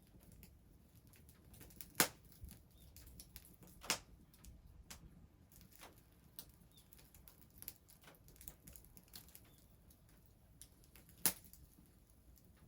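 Scattered sharp clicks and light knocks at irregular intervals, three of them louder, about two seconds in, four seconds in and near the end.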